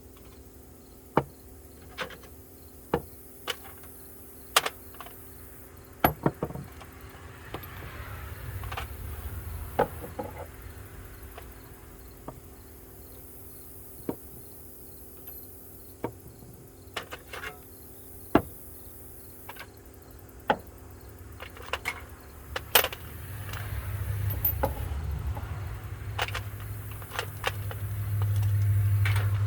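Sharp clicks every second or two as steel sockets are taken out of a toolbox and set down, over a steady chirring of crickets. A car's low rumble grows over the last several seconds.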